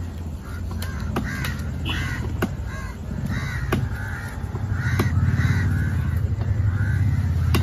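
Crows cawing over and over, with sharp knocks of a knife striking the wooden chopping block as the fish is cut, over a low steady hum that grows louder about halfway through.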